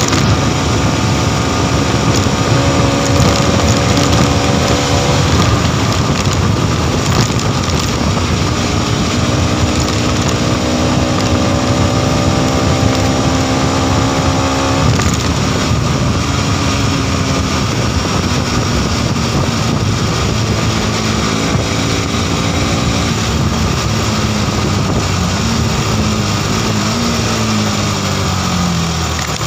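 Modenas NS200's single-cylinder engine running at about 120 km/h under heavy wind rush over the microphone. After about fifteen seconds the steady engine note breaks up, and near the end it falls in pitch as the bike slows down.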